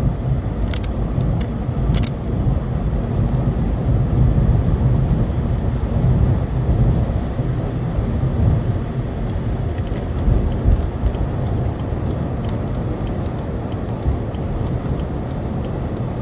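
Steady road and engine noise inside a moving car's cabin, a low rumble, with a couple of sharp clicks in the first two seconds.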